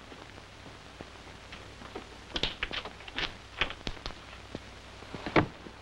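Footsteps, a scattering of irregular light taps and knocks, over the steady hiss of an old film soundtrack; the sharpest knock comes near the end.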